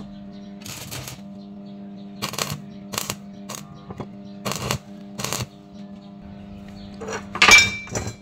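Hammer blows on a welded square steel-tube frame: scattered knocks, then a couple of loud, ringing metal strikes near the end, over a steady low hum.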